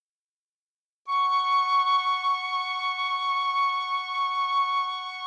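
Sonified moonlight played as a steady held piccolo tone, two notes sounding together, that comes in about a second in.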